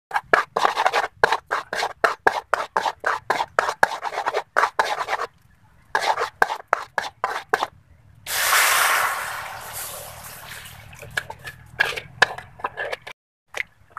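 Metal spatula scraping quickly against a wok as it stirs melting sugar, about four strokes a second. About eight seconds in, a loud sizzle starts abruptly and fades over a few seconds, as water goes into the hot caramel. A few scraping strokes follow near the end.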